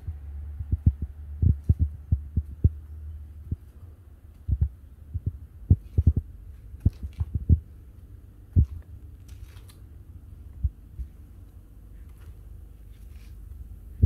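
Irregular low thumps and bumps of handling noise on a handheld phone's microphone, over a low hum that drops away about three and a half seconds in.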